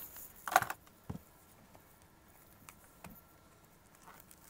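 Plastic shrink wrap being handled and peeled off a boxed music album: a louder crinkle about half a second in, a sharp click just after, then a few faint taps and rustles.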